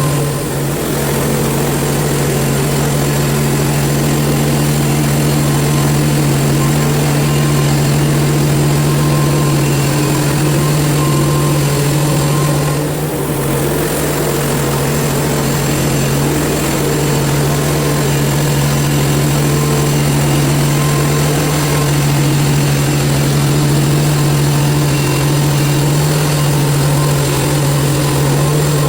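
Portable band sawmill running steadily while slabbing a red oak log: the mill's gasoline engine holds an even pitch under load with the band blade cutting, with a brief dip in loudness about halfway.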